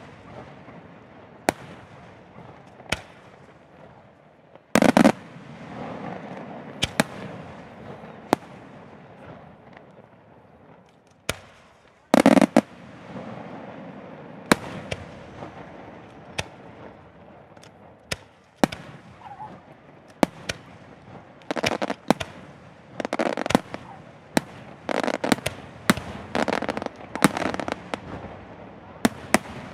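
Aerial firework shells bursting in a display: sharp bangs every second or two, with heavier booms about five and twelve seconds in and a rapid run of bursts near the end.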